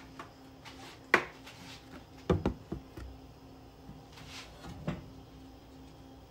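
A few separate sharp knocks and clunks of cookware being handled: a plastic olive oil bottle set down and a frying pan knocked and shifted on a gas stove's grate. The loudest come about a second in and as a quick pair a little later, over a faint steady hum.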